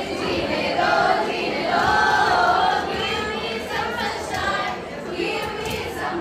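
A group of young women singing a song together into microphones, several voices in unison.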